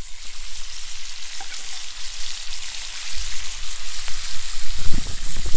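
Bacon and sliced red onions sizzling in oil in a cast iron skillet and a steel pan over a campfire: a steady, dense frying hiss, with a low rumble joining about three seconds in.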